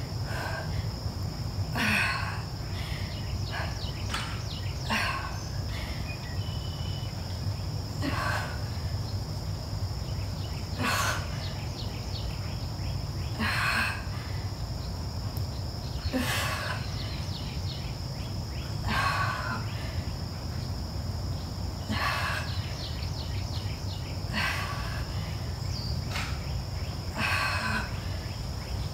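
A short swish about every three seconds, in the rhythm of twisting crunches on an exercise mat, over a steady high-pitched insect drone and a low hum.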